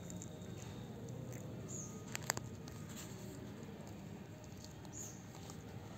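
Faint outdoor ambience of soft rustling in grass and leaves, with a couple of sharp clicks a little past two seconds in. A short high chirp comes back roughly every three seconds.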